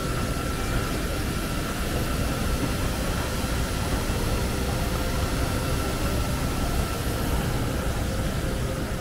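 Steady jet airliner noise: an even rushing roar with a constant high whine.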